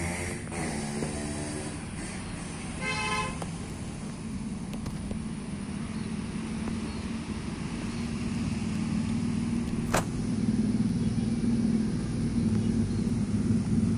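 A motor vehicle engine runs steadily nearby and grows louder toward the end, with a short horn toot about three seconds in and a single sharp click about ten seconds in.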